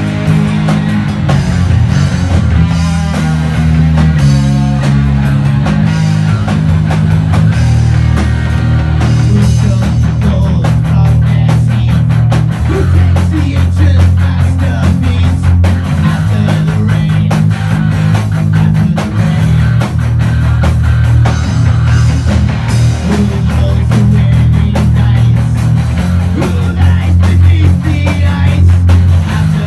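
Live rock band playing loud: electric bass, electric guitars and drum kit, with the drums hitting harder and denser from about nine seconds in.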